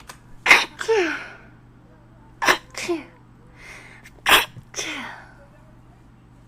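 A person sneezing three times in a row, about two seconds apart, each a sharp burst that trails off with the voice falling in pitch.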